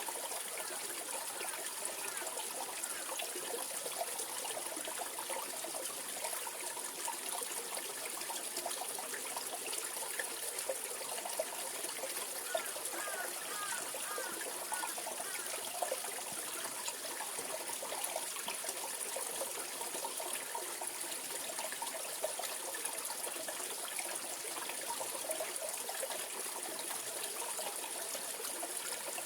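Mountain valley stream, water trickling and gurgling steadily over rocks.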